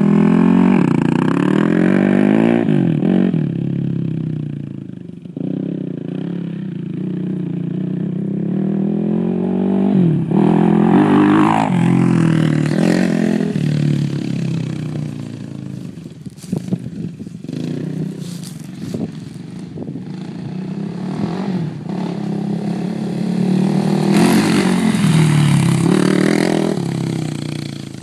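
Suzuki LT-R450 quad's single-cylinder four-stroke engine revving up and dropping back several times as it accelerates, with a spell of rattling clatter about halfway through.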